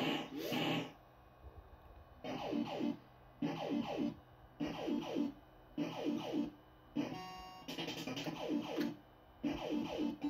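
Barcrest Alphabet fruit machine playing its electronic sound effects: a short phrase of falling tones, repeated about once a second with brief lulls between. About two thirds of the way through there is a quick run of steady beeps.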